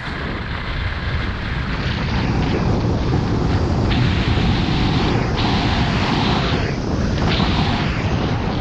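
Wind buffeting an action camera's microphone while skiing downhill, with the hiss and scrape of skis carving on groomed snow swelling and fading with each turn.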